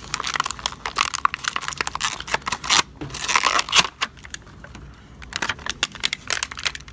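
Plastic blister packaging of a Hot Wheels car being cracked and torn away from its cardboard card: crackling, crinkling and snapping plastic, busiest in the first few seconds and then thinning to scattered crackles.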